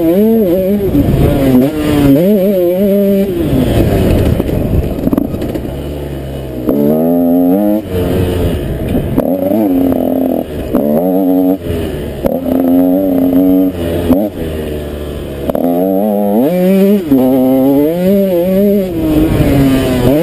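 KTM 125 SX two-stroke single-cylinder motocross engine revving hard under throttle while the bike is ridden. The pitch climbs through each gear and drops on shifts. Twice it falls back to a lower, rougher note off the throttle before picking up again.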